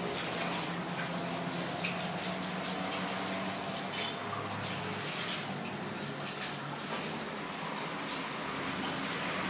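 Water running and splashing steadily during a dog's bath, pattering onto wet fur and a wooden stand.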